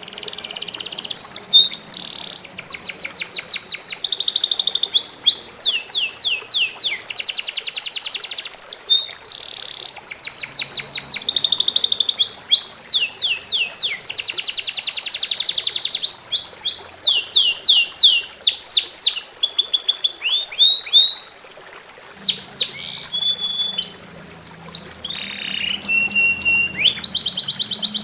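A songbird singing loud, high-pitched phrases of fast trills and rapid repeated notes almost without pause, breaking off briefly past the middle, over a faint trickle of running water.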